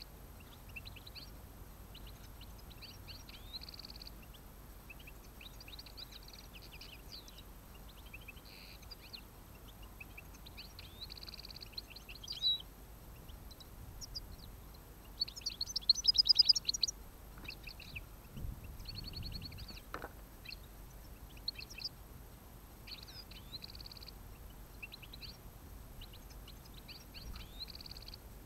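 European goldfinches singing: repeated short bursts of quick, tinkling twitters, with a louder, faster run about halfway through.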